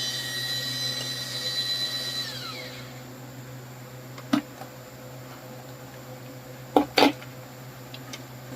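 Small electric motor of a mini turbine portable washing machine running dry with a high-pitched whine, which falls in pitch and winds down to a stop about two and a half seconds in. A few sharp clicks follow, three in all, two of them close together.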